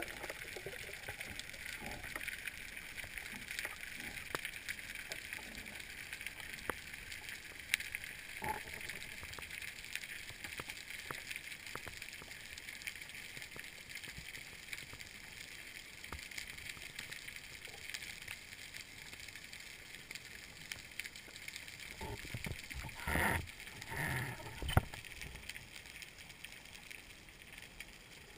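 Underwater ambience through a diving camera's housing: a steady hiss with many faint scattered clicks. Just past the two-thirds mark come a few louder muffled knocks and rustles.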